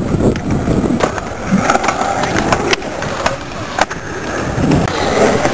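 Skateboard wheels rolling on a concrete skatepark bowl: a steady rumble, broken by several sharp clacks.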